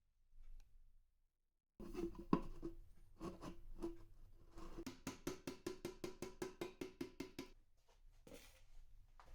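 A string of sharp knocks and clicks that settles into rapid, even clicking of about eight a second, over a faint ringing tone. The clicking stops a couple of seconds before the end.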